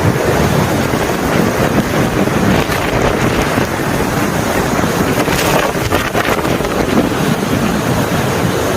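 Strong wind buffeting the microphone: a loud, steady rushing noise with a deep rumble.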